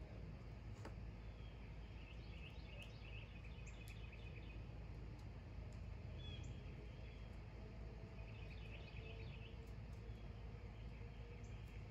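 Faint birds chirping in two spells of quick twittering, about two seconds in and again around eight seconds, with a short single chirp between them, over a steady low background rumble.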